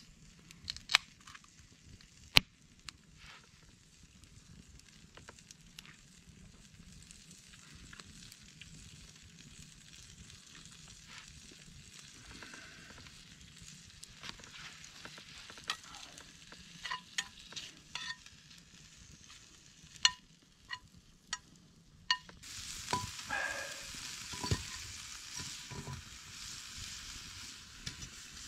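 Food frying in a pan over a campfire: a faint sizzle that slowly builds, with scattered sharp pops. About 22 s in the sizzle becomes suddenly much louder, as fresh food hits the hot pan.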